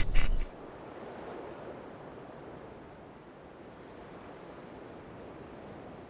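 A loud underwater sound effect cuts off about half a second in. A quieter, steady underwater water ambience follows, an even rushing hiss with no distinct events.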